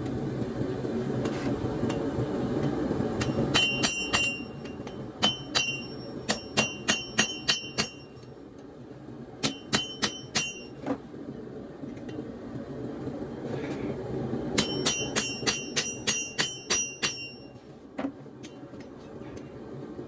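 Hammer blows on a steel double horn anvil, each with a bright metallic ring, coming in several quick bursts of about three to four blows a second, as steel is worked on the anvil. Underneath is a steady low rushing noise.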